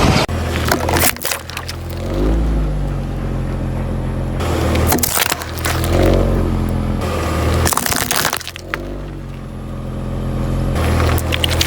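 Background music with several bursts of sharp cracking and crunching as objects are crushed under a car's tyre.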